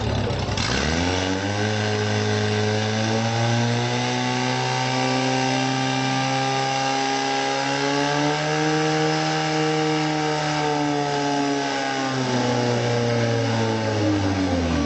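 Portable fire pump's engine running at full throttle during a fire-attack run, pumping water through the hoses. It revs up sharply about a second in, holds at high revs, and eases off near the end.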